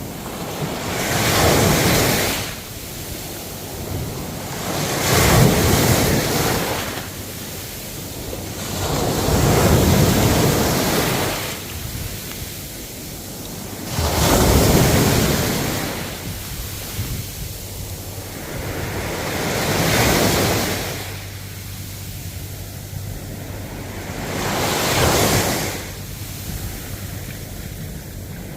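Ocean waves breaking and washing up the shore, swelling into a surge about every four to five seconds.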